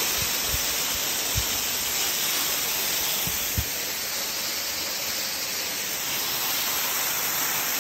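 Steady hiss of a thin waterfall falling as spray from a rock overhang and spattering down, with a few soft low thumps in the first few seconds.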